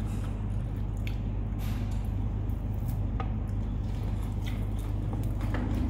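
Someone eating at a table: scattered light clicks and scrapes of a fork on a plate of salad, with soft chewing, over a steady low hum.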